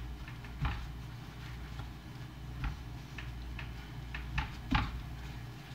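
Paper towels being pressed and patted over wet fish to blot them dry: soft rustling with a few scattered light taps, over a low steady hum.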